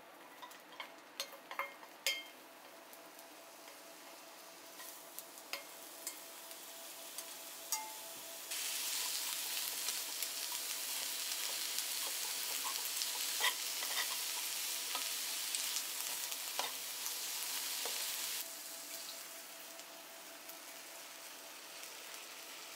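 Light clinks and taps of utensils on a pan for the first several seconds. About eight seconds in, a loud steady sizzle starts as sliced onions fry in a hot pan, stirred with metal tongs that click against it. About eighteen seconds in, the sizzle drops to a quieter hiss.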